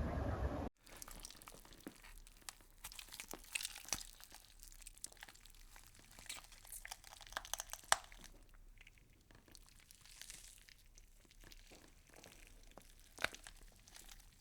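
Faint, irregular crisp crackling and crunching of an insect chewing through leaf tissue, with an occasional sharper click. A louder steady sound cuts off abruptly just under a second in.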